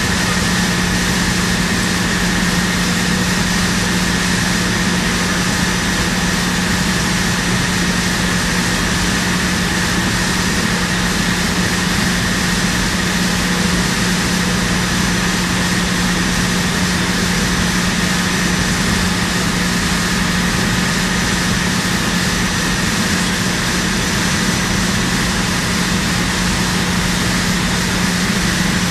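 Steady mechanical drone with a strong low hum and a fainter high whine, holding constant throughout.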